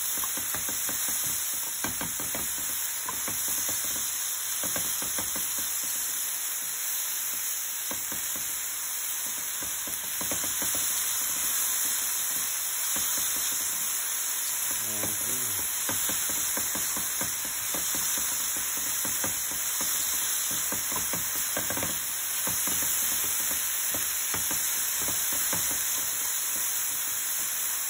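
Chopped Swiss chard stems sizzling steadily in hot oil in a frying pan, stirred with a spatula that clicks and scrapes against the pan again and again.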